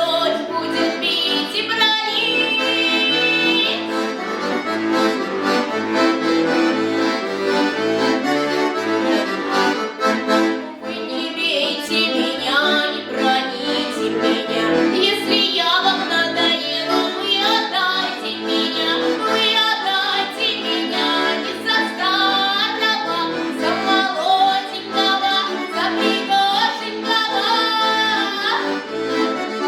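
Accordion playing a tune, a moving melody over long held chords, with no break.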